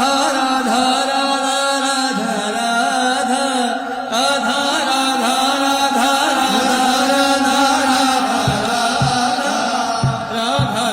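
Indian devotional Radha-Krishna music: an ornamented melody that glides between notes over a steady drone. Low drum beats come in near the end.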